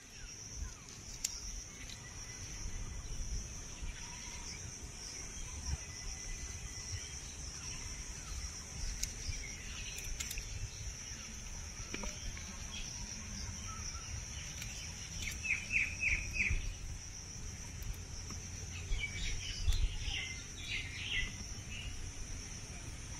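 Outdoor ambience: insects droning steadily at a high pitch, with a bird giving a quick run of about five chirps a little past the middle and more bird chirps a few seconds later.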